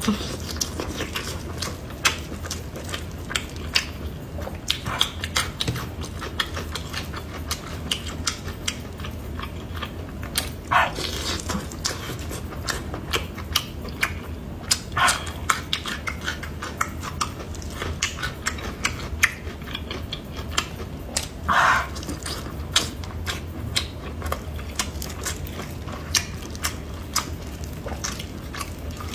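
Close-miked chewing of glazed braised large intestine: a run of wet, sticky clicks and smacks, with a few longer, louder sucking mouth sounds.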